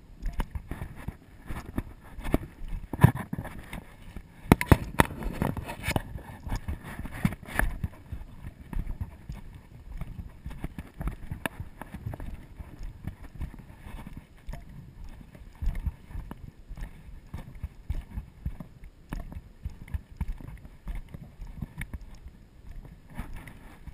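Footsteps on a dry dirt-and-stone trail, mixed with irregular knocks and rustling from the hiker's handling of rope leashes. The knocks are loudest and thickest about three to seven seconds in.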